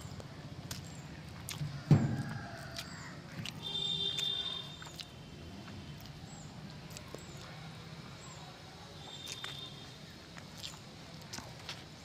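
Steel spoon scooping rice and curry from a leaf plate on a metal sheet, with scattered light clicks. One sharp thump about two seconds in is the loudest sound, and short high squeaky tones come around four seconds in and again near nine seconds.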